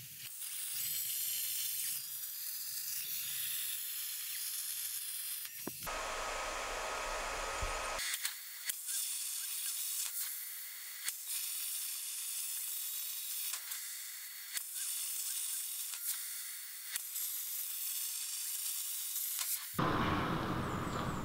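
Xtreme CNC plasma table's torch cutting 6 mm steel plate: a steady high hiss of the arc and air jet, broken by several short, sharp clicks. About a second and a half before the end the hiss stops and a lower, rumbling noise takes over.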